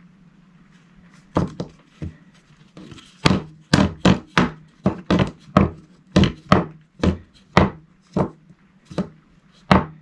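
A wooden strip with a hot-glued aluminium edge guard knocking against a wooden workbench as it is turned over and handled: about twenty sharp knocks, roughly two a second, starting a bit over a second in, over a steady low hum.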